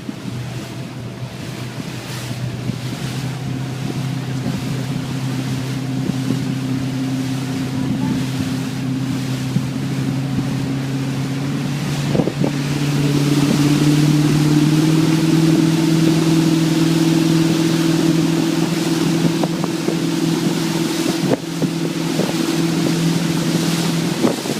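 Motorboat engine running with a steady hum that steps up in pitch and gets louder about halfway through as the boat speeds up, over a hiss of wind and water rushing past.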